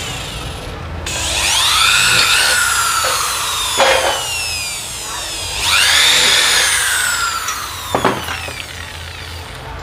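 Electric hand drill boring mounting holes for a motorcycle number plate, run twice. Each time the motor speeds up with a rising whine and then winds down, with a sharp click as each run ends.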